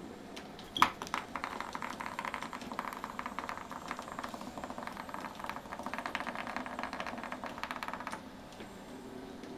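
A cat toy rattling with rapid clicking, starting with a sharp click about a second in and stopping abruptly near the end.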